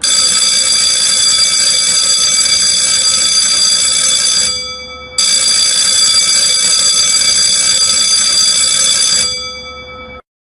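Timer alarm bell ringing in two long, loud rings of about four and a half seconds each, with a short pause between them; each ring fades out at its end. It signals that the countdown has reached zero.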